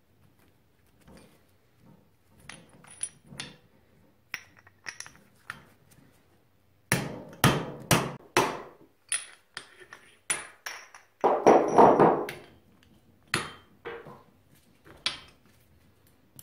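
Irregular metallic knocks and clinks of tools on a Showa motorcycle rear shock body as it is taken apart at the seal head, some with a short ringing ping. The knocks come thickest and loudest between about seven and twelve seconds in.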